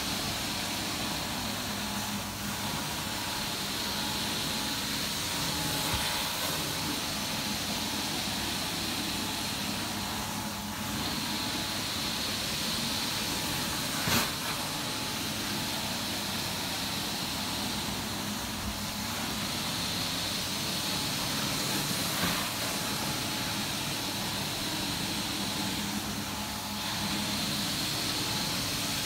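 Zipper carpet extraction wand fed by a Butler truck-mounted extractor, pulling steady vacuum suction through the carpet: a continuous rushing hiss over a steady machine hum. A single sharp click about 14 seconds in.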